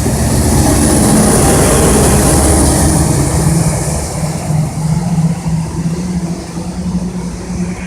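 New Jersey Transit train passing close by: a loud rushing rumble with a steady low hum, loudest in the first few seconds and then easing off.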